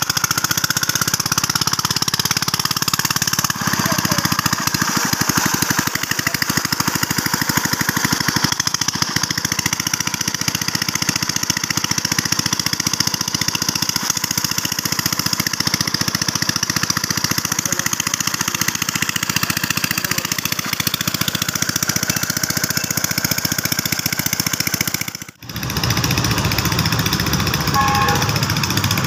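Small stationary engine driving a portable water pump, running steadily at constant speed, with water gushing from the pump's discharge pipe.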